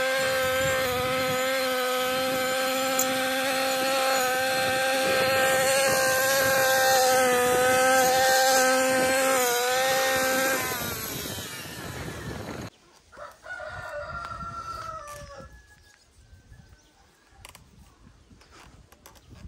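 Husqvarna 128R brushcutter's two-stroke engine running at a steady high speed, falling away about ten seconds in and stopping abruptly a couple of seconds later. Then, much quieter, a rooster crows once.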